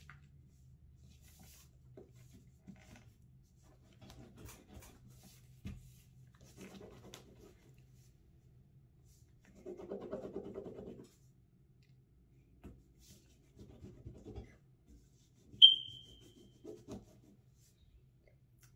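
Crayon or marker rubbing and scratching on paper as a drawing is coloured in, in short bouts, the longest about ten seconds in. A single sharp, high ping about sixteen seconds in is the loudest sound.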